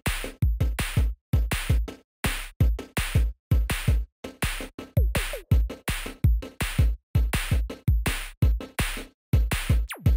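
Background music: an electronic drum-machine beat of short, sharp hits, about three a second, each cut off into a brief silence.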